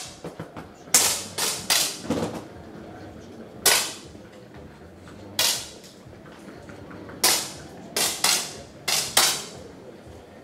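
Competition air pistols firing single shots down the range, about ten sharp cracks at irregular intervals, several coming close together. Each crack is one shot of a final's single-shot series.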